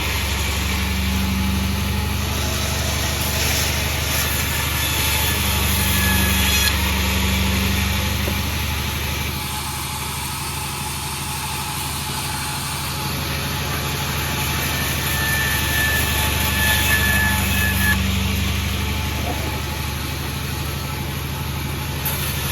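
A sawmill's engine running steadily with a constant low drone, easing slightly for a few seconds midway.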